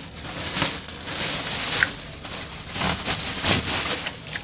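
Thin plastic bag crinkling and rustling in irregular bursts as a bunch of water spinach (kolmi shak) is pulled out of it.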